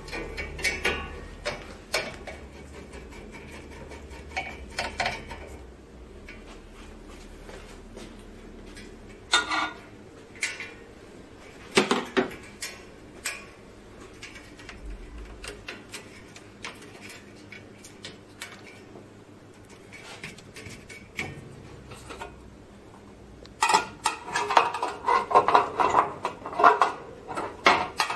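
Hands working on the parts of an opened Xerox wide-format printer: scattered clicks and small knocks from the wiring connectors and panels. Near the end comes a dense run of metallic clattering as a sheet-metal cover is handled.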